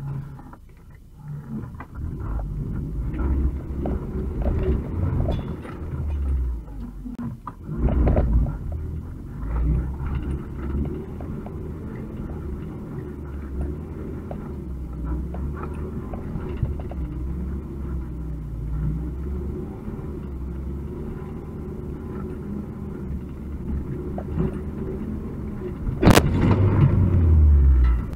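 UAZ 2206 van driving slowly over a rough, rocky forest track, heard from inside the cab: a steady low engine rumble with frequent knocks and rattles from the body over the bumps. A single sharp bang comes near the end, followed by a louder rumble.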